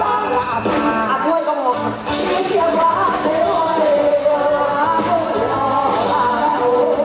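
Live band music with a woman singing lead through the stage PA; the bass end drops out briefly about a second and a half in.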